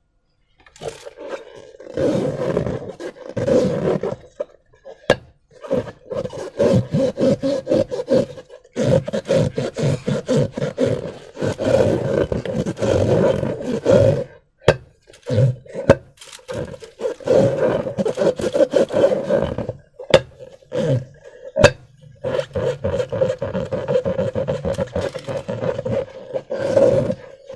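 Slime and rubber balloons being worked by hand: irregular wet squelching and rubbery rubbing in stops and starts, with a few sharp clicks or snaps.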